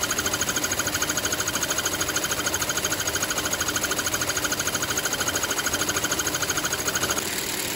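NS jacquard-type needle loom weaving narrow tape, set to run fast, giving a light, fast and even clatter of about ten beats a second. A little over seven seconds in, the clatter stops and a smoother, quieter machine noise takes over.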